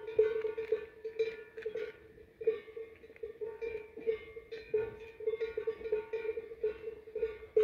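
Cowbells on cattle clanking continuously and irregularly, a ringing metallic tone struck again and again.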